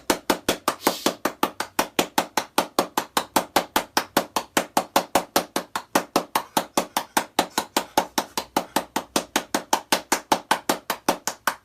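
A rapid, perfectly even series of sharp knocks, about six a second, going on without a break.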